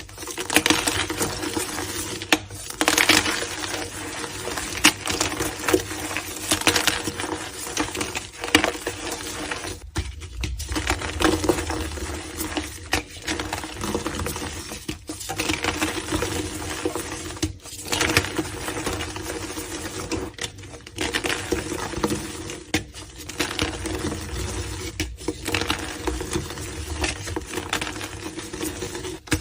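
Blocks of gym chalk being crushed and crumbled by hand: a dense crunching and crackling of many small sharp cracks, with brief breaks every few seconds.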